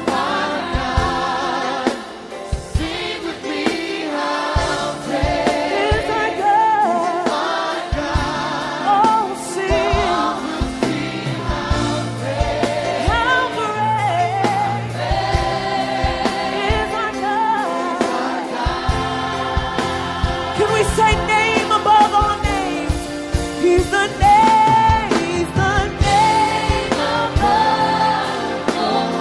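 Gospel worship music: a choir singing with a band, drums keeping a steady beat.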